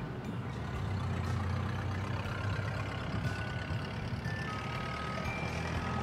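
Steady low rumble of distant engine or road traffic, with a few faint, thin held tones at different pitches.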